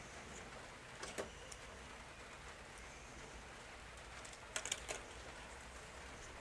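Light clicks and taps of small plastic toy parts being handled and fitted: a couple of clicks about a second in and a quick cluster of sharper clicks near five seconds, over quiet room tone.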